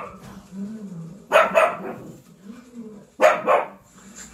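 Black pug puppy barking at wild animals on the television: two quick double barks, about two seconds apart.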